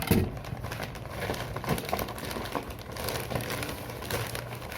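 Plastic packaging crinkling and crackling in irregular bursts as it is handled and pulled off.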